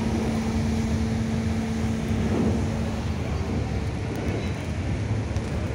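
Steady drone of a passenger ferry's engines heard from the open deck, with a low hum over a rushing noise of wind and churning wake water.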